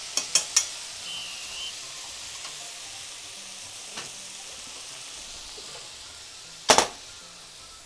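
Sliced pork belly sizzling in a frying pan over a gas burner, a steady hiss, with a few quick taps of chopsticks against the pan at the start. A single loud clunk of the pan comes near the end.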